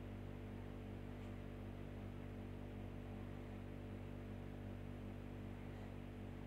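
Steady low electrical hum, faint and even throughout, with no stitching heard.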